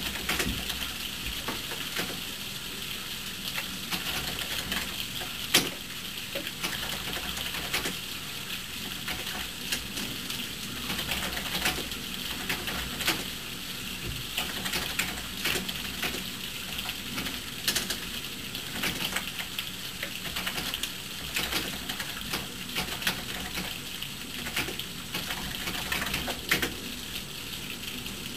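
Thunderstorm rain falling steadily, with drops tapping irregularly and sharply on a hard surface close by.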